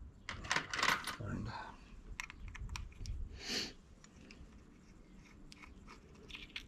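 Small clicks and rattles of a plastic Bobcat actuator housing being handled as its Hall effect sensor cover is taken off, with a short rustle about three and a half seconds in.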